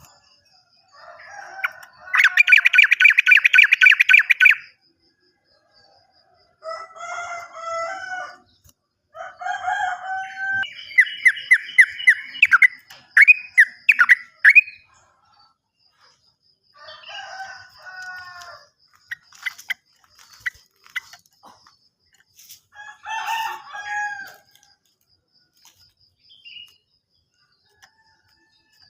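Yellow-vented bulbul (trucukan) singing in bursts of bubbly, chattering phrases, with a fast rolling trill (ropel) about two seconds in and a run of sharp, rapid notes around the middle.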